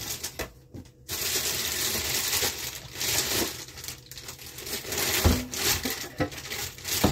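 Frozen food packages being shifted around in a freezer: plastic bags crinkling and hard frozen packets knocking and clicking together, starting about a second in.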